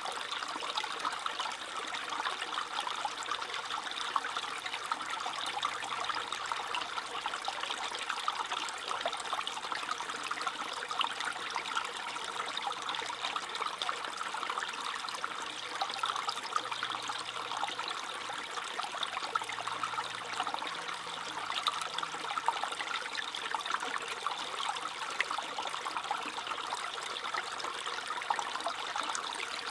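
A small stream trickling and babbling over stones, a steady splashing with many fine bright droplet ticks.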